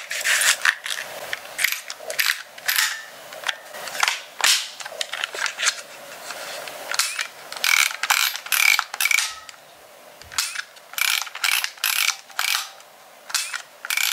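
Plastic clicking of a Manual reusable 35mm film camera as the film cartridge is seated, then the film-advance wheel ratcheting as it is wound on several times. The winding takes the film past the exposed leader after loading.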